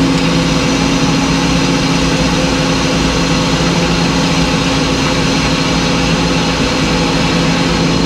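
Large circular sawmill blade ripping lengthwise through a white pine log, running steadily under load, with the sawmill's power unit running underneath.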